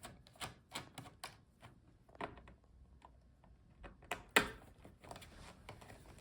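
Scattered light clicks and taps of a screwdriver and small screws on a laptop's plastic bottom case as the screws are taken out, with one louder click about four and a half seconds in.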